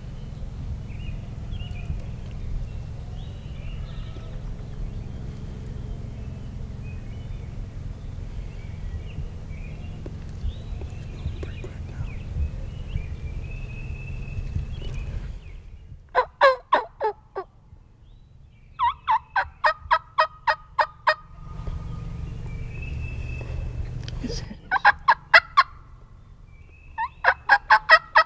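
Wild turkeys calling in four bursts of rapid, evenly spaced notes, the first starting a little past halfway. Before the calls there is a low steady rumble with faint small-bird chirps.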